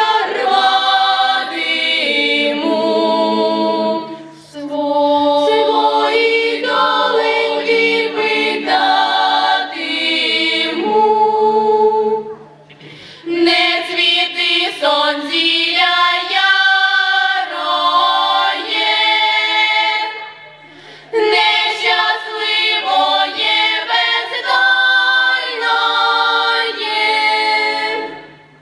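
Girls' folk vocal ensemble singing a Ukrainian folk song a cappella in several-part harmony through stage microphones. The song comes in long phrases with three short breath pauses between them.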